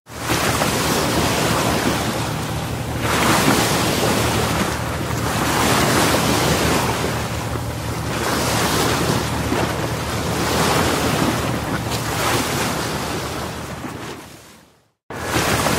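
Waves washing with wind buffeting the microphone: a steady rushing noise that swells and eases every two or three seconds, then fades out near the end.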